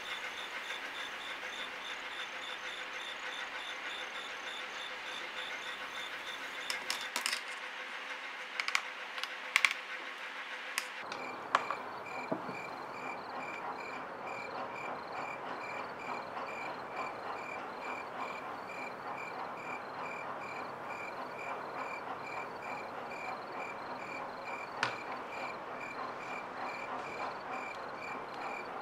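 Crickets chirping in a steady chorus of pulsing high notes, the chirp pitch dropping lower partway through. There are a few sharp clicks just before the change.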